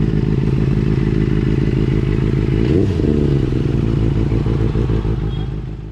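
Benelli 600i inline-four motorcycle engine running steadily, with a brief rev and drop about three seconds in, fading out at the end.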